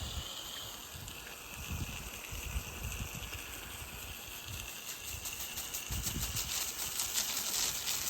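Softwash spray nozzle hissing steadily as it sprays cleaning solution up onto a shingle roof, starting abruptly.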